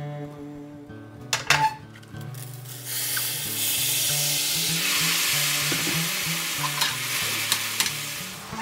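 Washed mulberries tipped from a colander into hot sugar caramel in a stainless steel pan, setting off a loud sizzle about three seconds in that slowly dies down. A couple of sharp knocks come just before it.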